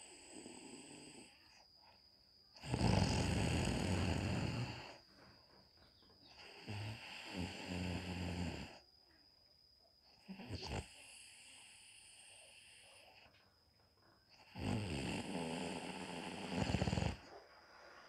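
A woman snoring in her sleep: two loud snores of about two seconds each, one near the start and one near the end, with a softer snoring breath between them.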